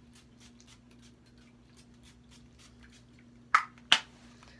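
Handling of a plastic body-spray bottle: two sharp clicks about half a second apart near the end, over the faint steady hum of a ceiling fan.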